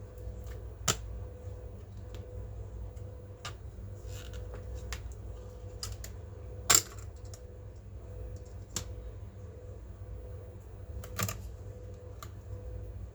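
Scattered light clicks and taps of small hard parts and tools being handled on an HP EliteBook 840 G7 laptop during a RAM upgrade, with about four sharper clicks, the loudest about halfway through, over a low steady hum.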